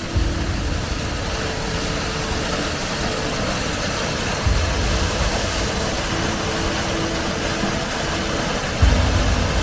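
Waterfall roaring: a steady, even rush of falling water, with a heavier low rumble coming in about halfway and again near the end.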